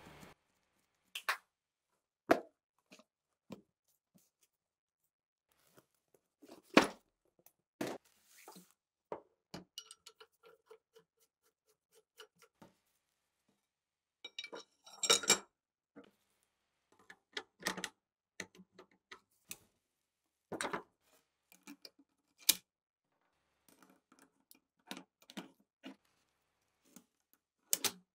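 Small metal parts of a ShKAS machine gun being handled and set down on a hard work surface: irregular clinks and knocks, a few of them ringing briefly.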